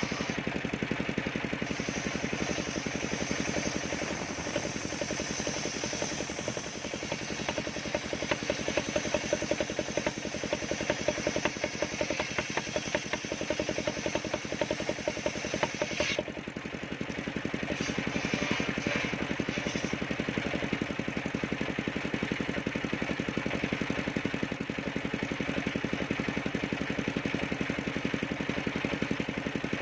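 Engine-driven circular sawmill running steadily, with a high whine of the blade cutting sengon wood from about two seconds in that cuts off sharply about halfway through, then a few short bursts of cutting.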